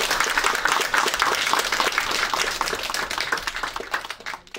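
Audience applauding, a dense clatter of many hands that thins out and dies away near the end.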